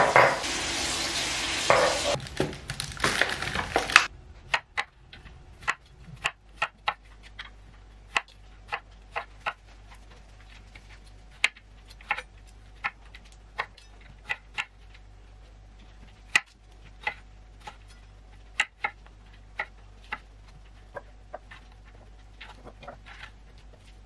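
Water runs from a kitchen tap for the first four seconds and stops suddenly. Then a chef's knife strikes a wooden chopping board as strawberries are sliced: sharp, irregular taps, about one or two a second.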